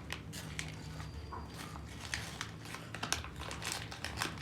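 A person chewing a crunchy strawberry-filled biscuit close to the microphone: irregular crisp crunches, several a second, over a steady low hum.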